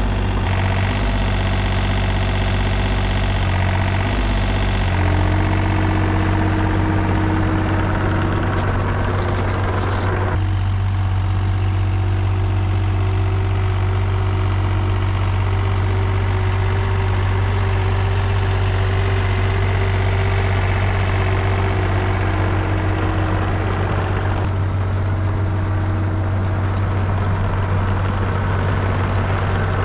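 Takeuchi TB235-2 mini excavator's diesel engine running steadily while working, with a faint whine over the engine note. The sound shifts about ten seconds in and again near the end.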